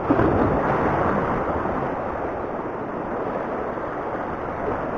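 Waves breaking and washing over a rocky reef edge, with wind on the microphone; a little louder in the first second as a wave comes in, then a steady wash.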